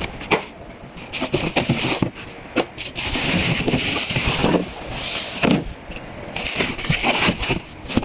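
Packaging of a hardware blind box being handled and opened: irregular rustling, scraping and tearing with scattered clicks and knocks, and a longer tearing hiss about three seconds in.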